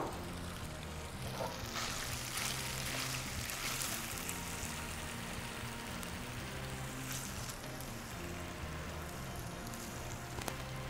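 Faint sizzling hiss from a hot skillet of pesto pasta and chicken as it is served onto a plate, with a few soft scrapes of a utensil against the pan.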